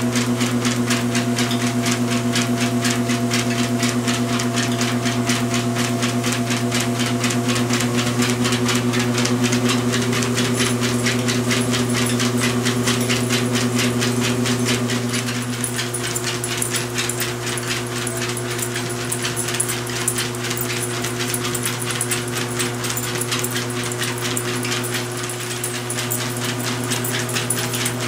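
Motorised home treadmill running steadily with a basset hound walking on the belt: a constant motor hum with a fast, even clicking from the moving belt.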